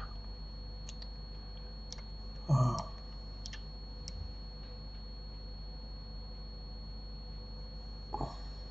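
A few scattered computer mouse and keyboard clicks over a steady hum with a faint high whine. A short burst of voice comes about two and a half seconds in.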